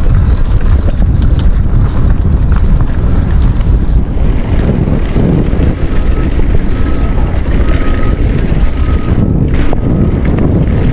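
Wind buffeting the microphone of a mountain bike moving fast along a dirt trail, a loud steady rumble with the bike rattling over the ground. A sharp knock comes about nine and a half seconds in.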